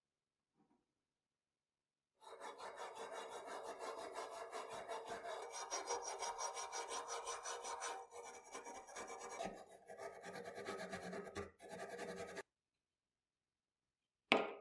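Hand wire brush scrubbing rust off a bayonet's steel tang in rapid back-and-forth strokes, about four or five a second, with a few short pauses. The scrubbing stops suddenly, and one short sharp knock follows near the end.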